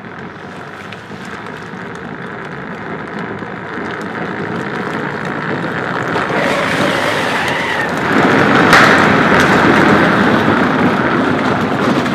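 Ride-on toy pickup truck driving, a steady noise that grows louder and is loudest over the last few seconds.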